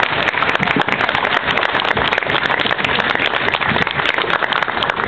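A crowd applauding: a dense, continuous patter of many hands clapping.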